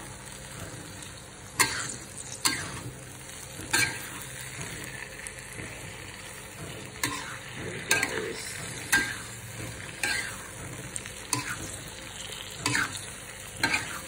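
Metal spatula scraping and knocking against a wok, about ten irregular strokes, as chopped tomatoes, shallots and garlic are stir-fried over a steady sizzle.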